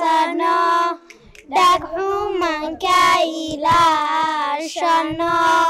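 Young girls singing into a microphone in long held phrases, with a short break about a second in.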